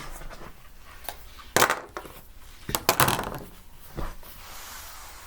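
Fabric being handled on a cutting table: a few short rustles and light knocks, about a second and a half, three and four seconds in.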